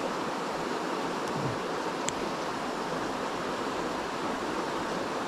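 Water of a small stream running steadily, with one faint click about two seconds in.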